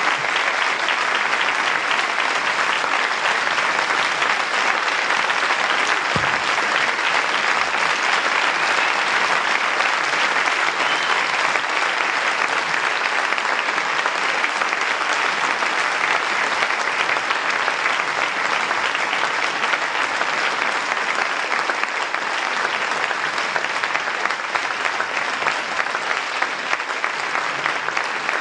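Concert audience applauding steadily and at length after a song ends.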